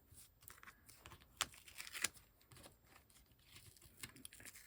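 Paper and cardstock being handled: faint rustling and crinkling, with a few sharp taps, the loudest about one and a half and two seconds in.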